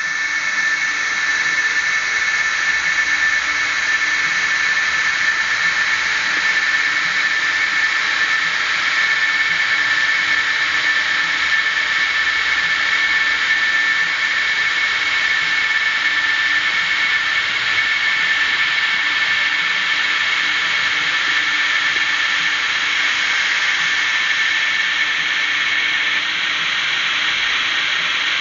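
DCC sound decoder in a Fleischmann N-scale Re 460 model locomotive playing its electric-locomotive running sound through its small speaker: a steady whine of several tones over a hiss. One of the tones drops out about two seconds before the end.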